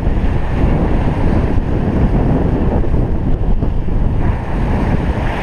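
Wind buffeting the microphone over the steady rumble of a sport-fishing boat and the wash of water at its stern, with splashing growing louder near the end as a hooked white marlin thrashes at the boatside.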